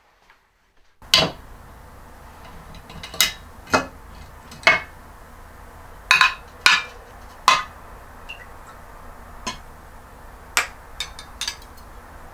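Stainless-steel ladle clinking and knocking against the inside of a glass jar. There are about a dozen sharp, separate clinks at uneven intervals, the first about a second in.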